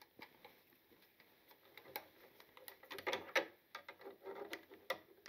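Faint clicks and scrapes of a screwdriver turning a light fixture's terminal screw and seating the red wire's hook under it, scattered through and busiest in the second half.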